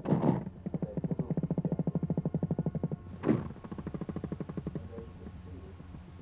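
Courtship vibrations of a male jumping spider, drummed by his abdomen, picked up through a laser vibrometer and played as sound. It is a rapid train of buzzing pulses, about a dozen a second, broken by a sharp thump about three seconds in, then a fainter pulse train.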